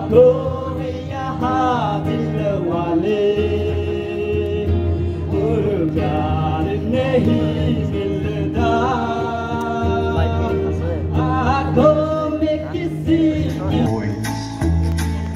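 Music: a song with a singing voice carrying a gliding melody over instrumental accompaniment with sustained bass notes.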